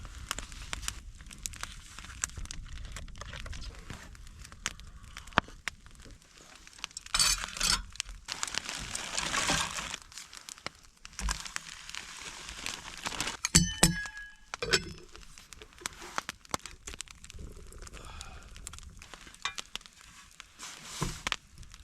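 Handling noises while food is prepared: rustling and crinkling, with scattered small clicks and a ringing clink about two-thirds of the way through.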